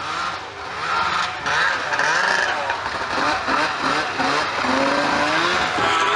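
Snowmobile engines revving and easing off as the sleds ride around, the pitch rising and falling repeatedly, with one long rising rev about five seconds in.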